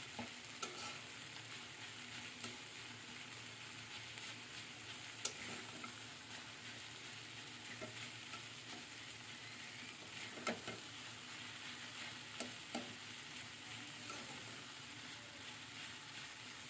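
Food sizzling steadily in hot oil in a pan while it is stirred. A spatula knocks or scrapes against the pan every few seconds.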